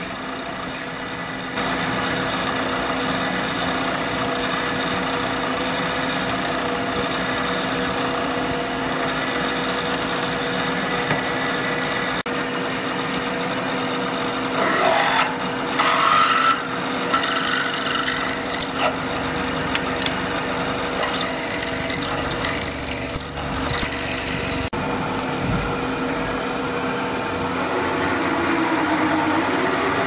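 Milling machine spindle running steadily while a twist drill bores into a metal block, stepping up through larger drills to open a main bore. In the second half, several bursts of high-pitched cutting noise come as the drill bites in.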